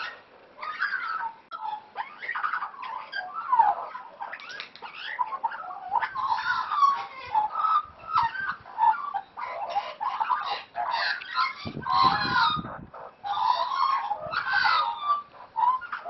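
Several Australian magpies warbling and chattering, a dense unbroken run of calls full of rising and falling notes.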